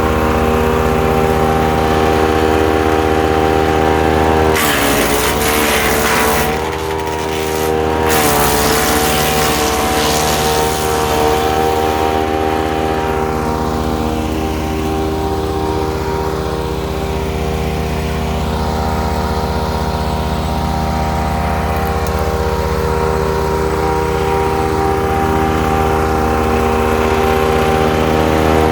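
Ducar woodchipper's small petrol engine running steadily at speed, with branches being chipped in two crackling bursts about five and eight seconds in, the engine pitch dipping briefly under the load, then lighter chipping fading out before it runs on unloaded.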